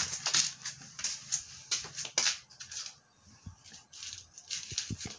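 Close handling noise from a hand rubbing and brushing right by the microphone: a string of short, irregular rustling scrapes, with a quieter stretch about three seconds in.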